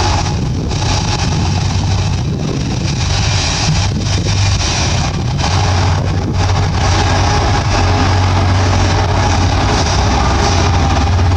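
Bulldozer's heavy diesel engine running steadily with a deep hum, a little louder in the second half.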